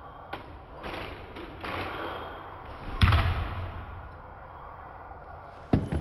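Unitree AlienGo quadruped robot's feet knocking and scuffing on foam mats as it gets up onto a raised step, with one heavy thud about halfway through and a sharp knock near the end.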